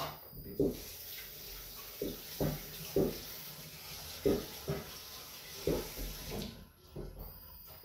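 Kitchen tap running into a sink, starting about half a second in and shutting off about a second before the end, with several short clunks of things being handled in the sink while it runs.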